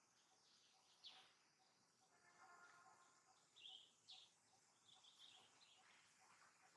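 Faint outdoor ambience with a few short, high bird chirps scattered through it.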